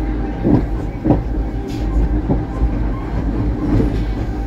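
Corcovado electric rack-railway train running downhill: a steady low rumble and hum, with a few knocks from the wheels on the track.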